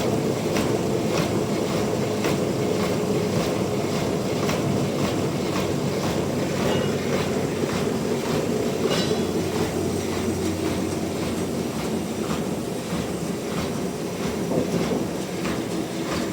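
Sawmill machinery running steadily, with a regular click about twice a second.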